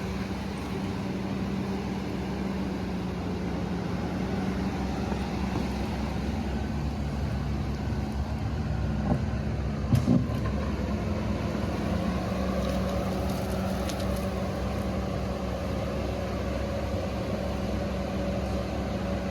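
Diesel engine of a heavy earthmoving machine running steadily under work, with two sharp knocks about nine and ten seconds in.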